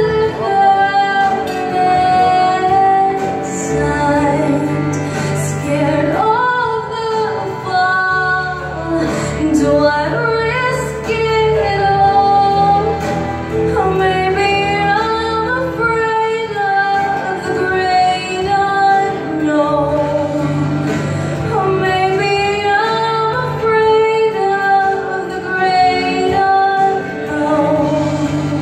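A woman singing a song into a microphone over steady instrumental accompaniment.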